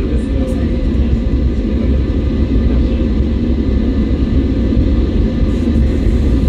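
Steady loud rumble of the TGV V150 test train running at very high speed, heard from inside the driver's cab: wheel-on-rail and wind noise, mostly deep and low, with no break.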